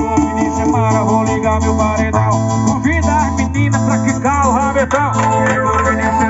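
Loud music played through a car sound system: a heavy, pulsing bass line under a plucked lead melody with frequent pitch bends, and light shaker percussion.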